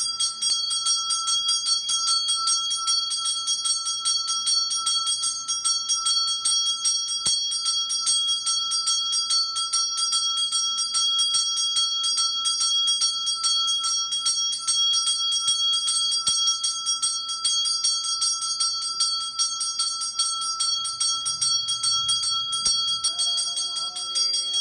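Brass temple bell rung rapidly and without pause during an aarti lamp offering, a bright, steady ringing of many strikes a second.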